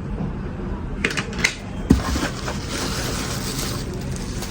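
Light clicks and a knock of small hard objects being handled, followed by a soft rustling, typical of lighters and their packaging being moved about during unboxing.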